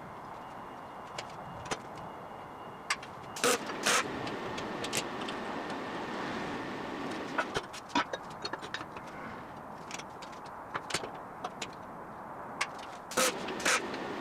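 Short, sharp knocks and clanks of steel being handled or tapped during fabrication, over a steady background noise. The loudest come in two pairs, a few seconds in and again near the end.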